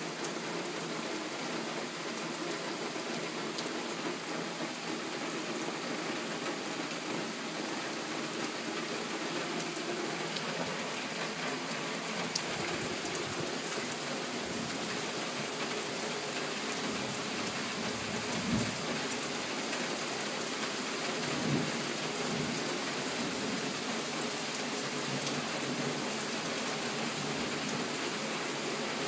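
Steady rain pouring down and splashing on surfaces: a dense, even hiss of drops. Past the middle come two brief low thumps about three seconds apart.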